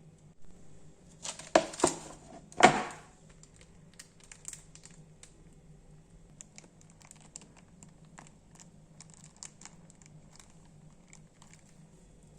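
Crinkling and rustling of something being handled, loudest in a few sharp bursts between one and three seconds in, followed by scattered faint clicks and taps.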